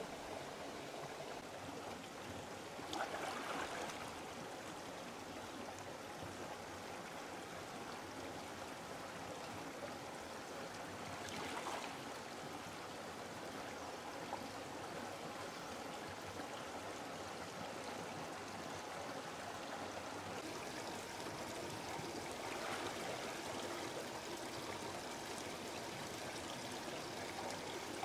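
Shallow river water flowing steadily, with a few brief louder swishes of water as someone wades through it.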